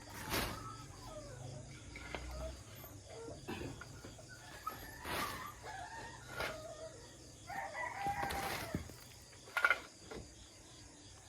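Chickens calling, with a rooster crowing about eight seconds in, over a few short knocks or scrapes.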